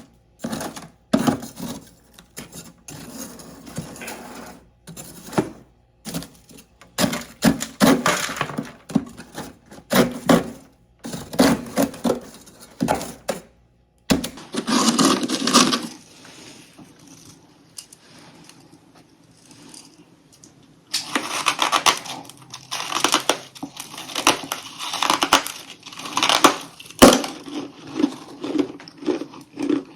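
Close-up biting and chewing of crunchy humidifier freezer-frost chunks: bursts of crackling crunches separated by short pauses, then a run of steady, evenly spaced chews in the last third.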